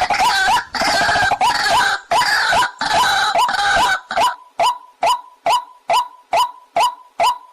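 Waterhen (jal murgi) calls: several birds calling over one another in a dense run of harsh notes, then about halfway through a single bird repeating one short hooked note evenly, about twice a second.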